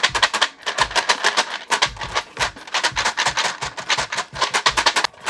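Plastic keycaps rattling and clattering inside a clear plastic GMK keycap tray as it is shaken back and forth. The rattle is a rapid, dense run of clicks with heavier knocks now and then.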